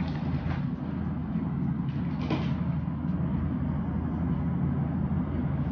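Steady low hum throughout, with a few brief rustles of a backpack being handled, the clearest about two seconds in.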